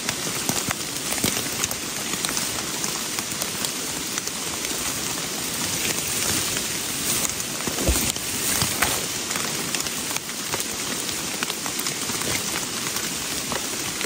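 Heavy rain falling steadily, with many sharp close drop hits. There is one duller thump about eight seconds in.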